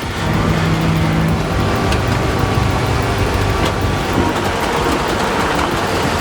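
Heavy truck's diesel engine running steadily, with a low drone under road and tyre noise.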